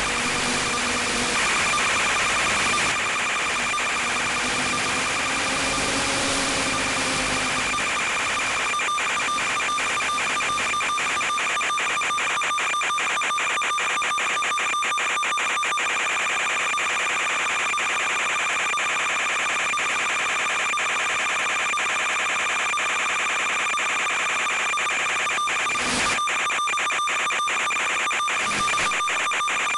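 Steady electronic buzz and hiss from an analog FPV video link's audio channel, with rapid fine crackling from about nine seconds in. A low hum wavers in pitch during the first seven seconds, and two short louder crackles come near the end.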